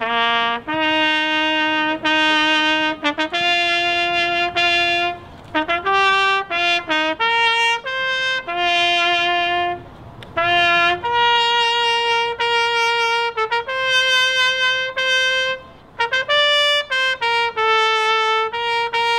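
Solo trumpet playing a slow melody in long held notes, with three short breaks between phrases.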